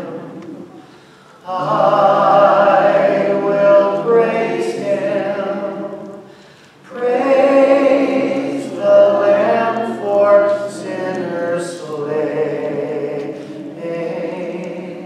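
Congregation singing a hymn together without accompaniment, in long held phrases broken by two short pauses for breath.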